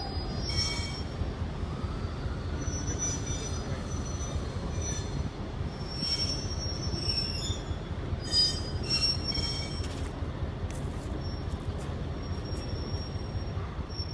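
Railroad turntable turning with a diesel switcher locomotive on its bridge: metal wheels squealing high and on and off over a steady low rumble, with a few sharp clicks about two-thirds of the way through.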